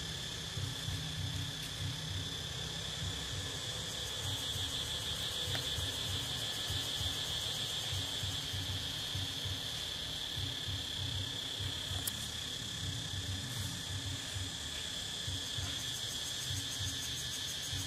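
Steady, high-pitched drone of insects in the trees, with a low, uneven rumble underneath.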